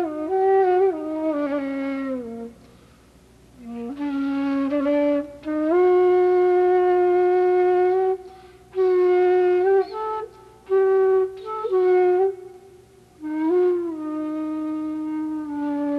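Solo flute melody of long held notes, with pitches sliding and bending between them, in phrases broken by short pauses about two and a half seconds in and again near thirteen seconds.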